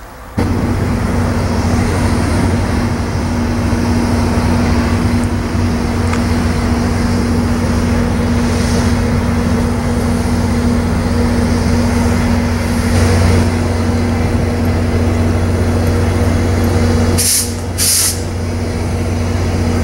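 VIA Rail F40PH diesel-electric locomotive standing at a platform, its diesel engine running with a steady low drone and a steady hum. Two short hisses of air come near the end.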